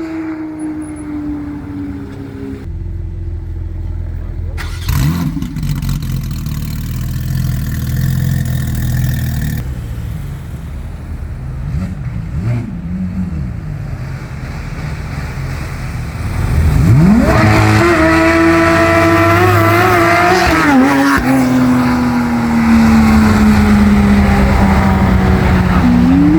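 Sports car engine revving hard: revs fall at first, then climb sharply about two-thirds of the way in to a loud, high-pitched run held for a few seconds, then wind down in a long falling whine, with a short rise again at the end.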